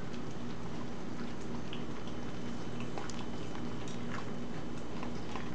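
A corgi chewing and licking vegetables off a plate, making scattered small wet clicks and smacks over a steady low hum.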